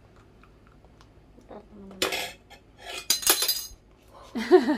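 Spoon scraping and clinking against a clear plastic bowl as slime is stirred, in two short bursts about two and three seconds in.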